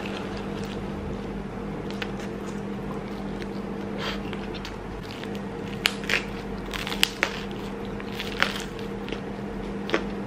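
Biting and chewing a slice of thin-crust homemade pizza, with sharp crunches every second or two over a steady low hum.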